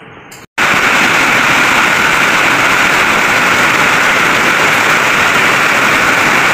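Heavy rain falling, a loud steady hiss that starts abruptly about half a second in.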